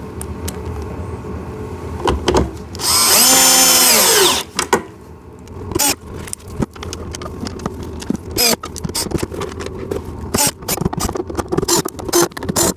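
Cordless power drill driving a screw into a kids' ride-on car: one run of about a second and a half, its motor whine rising and falling, followed by a string of short clicks and knocks.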